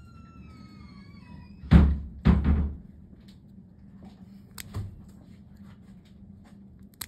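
A high, falling cry about a second long, then two heavy thumps, the loudest sounds here, followed by a few small sharp clicks as spring-loaded pet nail clippers cut a cat's claws.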